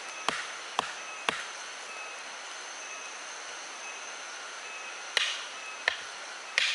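A hand tool striking wood in a steady rhythm of about two blows a second: three blows, a pause of a few seconds, then three more near the end. A steady high-pitched hum runs underneath.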